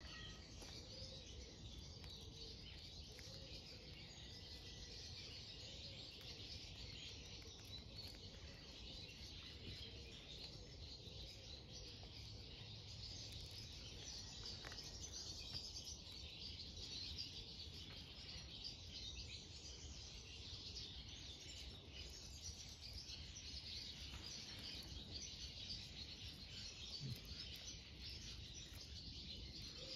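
Faint outdoor ambience: many small birds chirping in the background over a steady low rumble of background noise.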